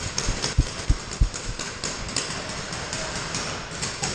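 Paintball markers firing: a run of sharp pops about three a second, then from about a second and a half in a dense, steady crackle of rapid fire.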